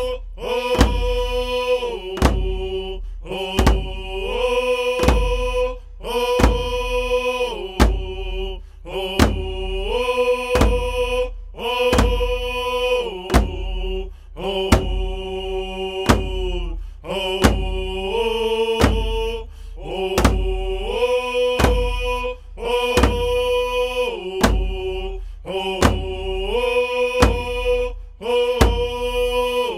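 A chanted song, long held notes that glide between pitches, over a steady drum beat.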